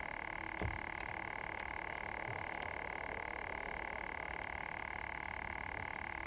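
Small camp stove burning under a metal pot, a steady fluttering hum. A low knock about half a second in and a few faint ticks as a container is handled.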